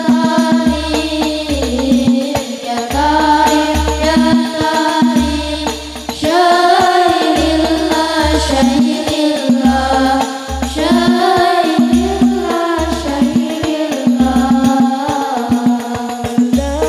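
Girls' voices singing an Islamic sholawat together into microphones, amplified through a sound system, over a rhythmic backing with a regular low beat and jingling, tambourine-like percussion.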